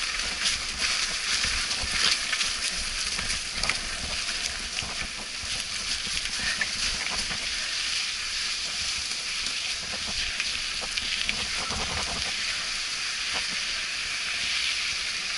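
A mountain bike riding downhill on a wet dirt trail: a steady hiss of tyre and wind noise on the bike-mounted camera microphone, with low buffeting and scattered small knocks and rattles from the bike over the rough ground.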